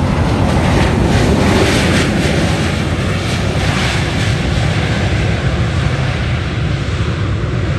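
Jet engines of a twin-engine airliner, a Boeing 737, at takeoff power as it rolls down the runway: a loud, steady jet rumble and roar.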